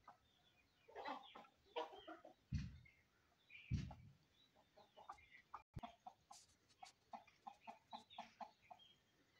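Aseel chickens clucking in short calls, with two dull low thumps near the middle. In the last few seconds the clucks come in a quick, even run, about three a second.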